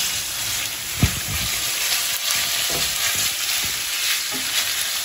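Minced pork and beef, freshly added to fried onions, sizzling in a frying pan while a wooden spatula stirs and breaks it up. The spatula knocks against the pan now and then, most sharply about a second in.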